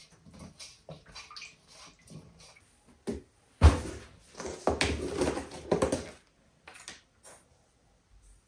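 Kitchen work: soft clatter and handling, then a sharp knock about three and a half seconds in, followed by a couple of seconds of splashing, running water.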